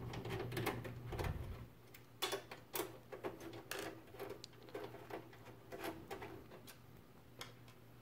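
A screwdriver unscrewing screws from a small panel on a metal PC case: faint, irregular metallic clicks and taps, over a low steady hum.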